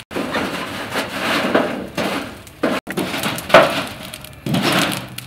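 Short edited clips of scraping, clinking and crackling, each cut off sharply. In the loudest one, a little past the middle, a stick stirs burning lumps of charcoal in a metal grill, so the charcoal clinks and crackles.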